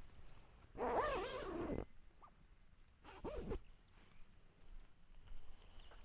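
A tent door zipper pulled along its curved track, a rasping zip about a second long whose pitch rises and falls with the speed of the pull, followed by a shorter zip a couple of seconds later.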